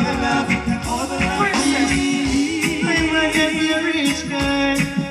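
Live reggae band playing, with drums keeping a steady beat under sustained instrument tones and a male voice singing.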